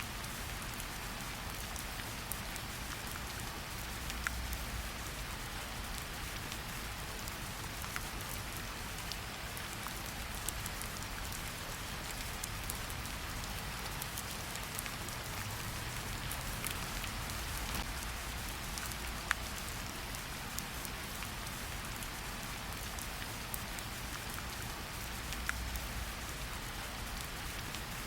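Steady rain falling in a forest, an even hiss with scattered sharp individual drops ticking on nearby surfaces.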